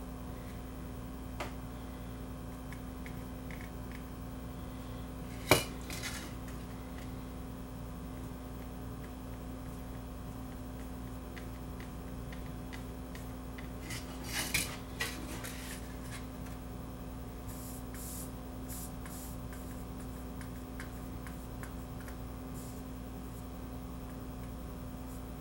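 A sharp metallic click about five seconds in and a short cluster of light clinks around fourteen to fifteen seconds in, from tools at a workbench during hand-soldering of a chip onto a circuit board, over a steady low hum.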